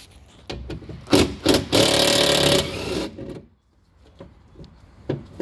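Cordless impact driver hammering for about a second as it undoes a T30 Torx bolt holding the window regulator in the door, after a few knocks as the bit is set on the bolt.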